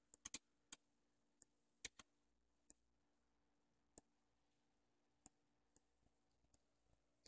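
Near silence with faint, scattered clicks, a few close together near the start and then single ticks about a second apart, as the Pioneer PL-88FS turntable's motorised front-loading tray slides out.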